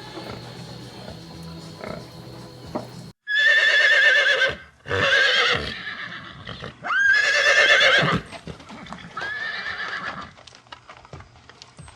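Horse neighing: four whinnies with a quavering pitch, starting about three seconds in, the last one quieter.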